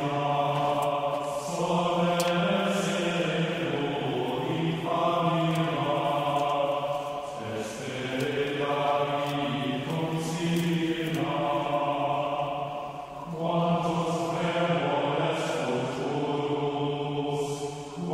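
Solemn church-style chanting as background music: low voices holding long notes in phrases of two to three seconds, with short breaks between them.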